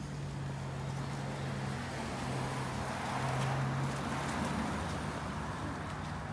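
A car passing along the street: tyre and engine noise swells to a peak about halfway through, then fades, over a steady low engine hum.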